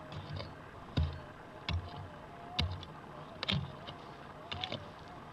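A pick striking into hard, stony red soil while digging out a hole, about five blows, each a thud with a crunch of gravel.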